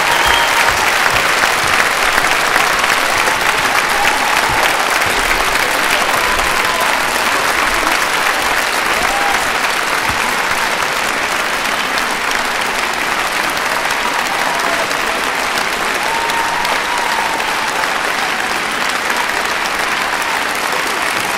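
A large theatre audience and the cast on stage applauding, a long, steady ovation of many hands clapping that eases only slightly.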